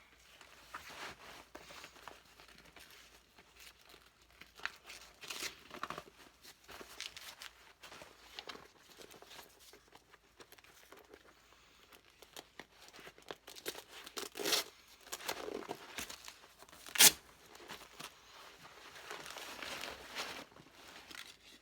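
Packaging being handled and unwrapped: intermittent rustling, crinkling and tearing, with a single sharp knock late on that is the loudest sound.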